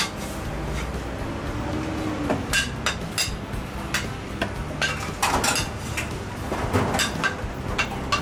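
Irregular sharp knocks of a heavy cleaver on a wooden chopping block, mixed with the clink of plates and utensils on a steel counter.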